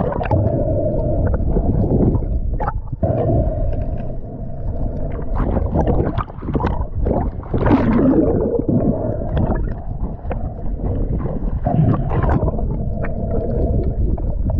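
Underwater sound picked up by an action camera in its housing: a muffled, continuous rumble of moving water with bubbling and scattered knocks, and a louder rush of water about eight seconds in.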